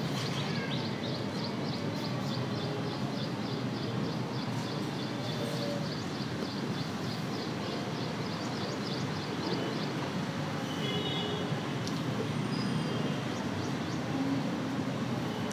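Steady background rumble and hiss with a high, regular chirping about three or four times a second through the first half, then a few short high chirps later.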